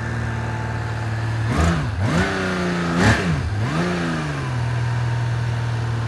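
1980 Honda CBX's air-cooled inline-six engine idling smoothly, blipped twice on the throttle: the pitch rises and falls back about one and a half and three seconds in, then settles to a steady idle.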